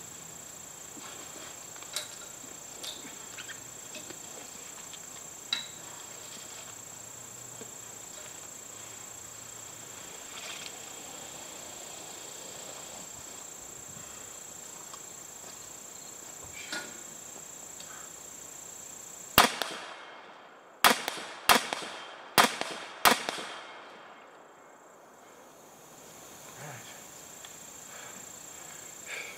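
Five shots from an AR-15-style rifle, fired at an uneven pace over about four seconds, each trailing off in a short echo.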